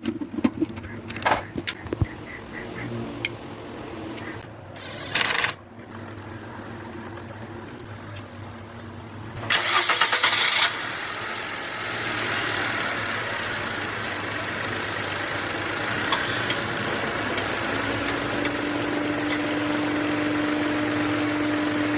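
Car engine cranked by its starter for about a second, catching about ten seconds in and then running steadily; a steady whine comes in near the end. Scattered clicks and a short burst of noise come before the start.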